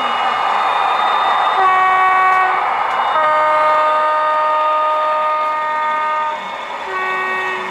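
HO-scale model diesel locomotives' sound decoders sounding air horns through their small speakers over a steady rushing engine sound: a short chord, then a longer chord at a different pitch, then a short chord like the first.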